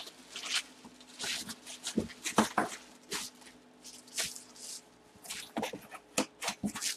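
A cardboard helmet box and its paper insert being handled: irregular rustling and scraping, with a few short squeaks about two and a half seconds in.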